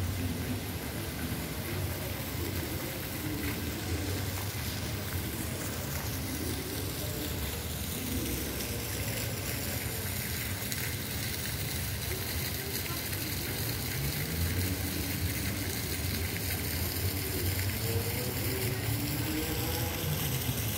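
Park ambience: a steady hiss over a low rumble, with faint voices of people in the distance now and then.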